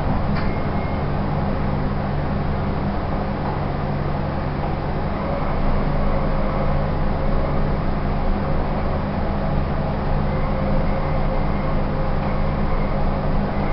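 Fujitec elevator car travelling upward, heard from inside the car: a steady machine hum with low drone tones, and a higher steady tone joining about five seconds in. A short click sounds just after the start as the doors settle shut.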